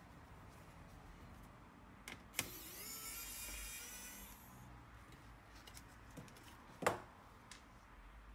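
Pen-style cordless electric screwdriver running with a steady whine for about two seconds as it backs a screw out of the laptop motherboard. Light clicks come before it, and a sharp knock about seven seconds in.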